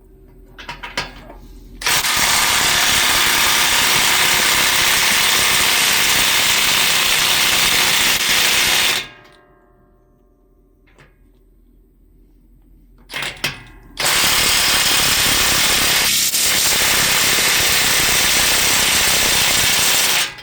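Impact wrench hammering U-bolt nuts tight on a semi trailer's suspension: two long runs of about seven and six seconds, each led by a couple of short trigger blips.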